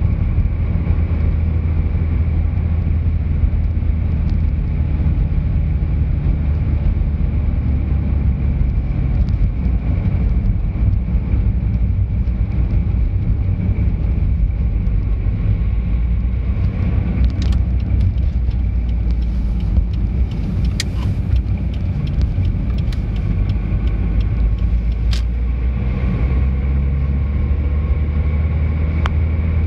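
Steady low rumble of a car driving along a road, heard from inside the cabin: engine and tyre noise, with a faint steady whine. A few sharp clicks come in the second half.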